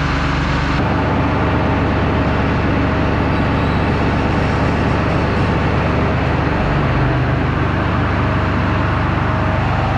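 Engine running steadily, its note shifting about a second in and again around seven seconds in.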